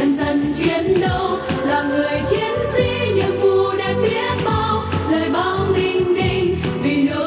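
A group of women singing together into microphones over an amplified backing track with a steady beat.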